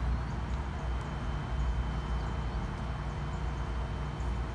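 Wind rumbling on the microphone over a steady outdoor background hiss, with a faint, steady high-pitched tone throughout.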